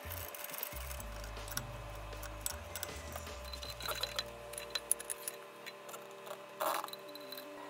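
Scattered light metallic clicks and clinks of hand tools and brake hardware being handled, with a louder short scrape about two-thirds of the way in.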